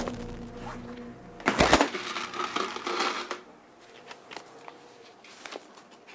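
Sustained background music fades out in the first second. About a second and a half in there is a sharp rustle and clatter, then paper rustling for a couple of seconds and light scattered handling sounds as envelopes and letters are picked up and leafed through.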